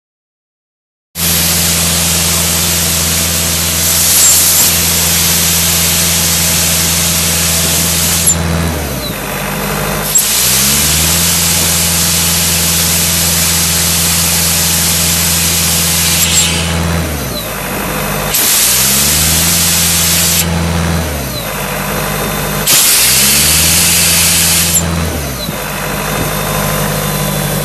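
Ingersoll Rand 185 towable air compressor running on its John Deere 4.5 L four-cylinder diesel, with compressed air hissing out of a hand-held hose in several long blasts. Each time the air is shut off, the engine speed dips and then recovers.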